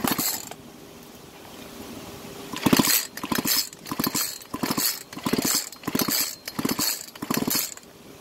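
Echo CS-360T chainsaw's recoil starter pulled repeatedly with the spark plug removed, the engine spinning over freely without compression and not firing. One pull right at the start, then after a pause about a dozen quick pulls, about two a second, each a short whirring rattle of the rope and flywheel.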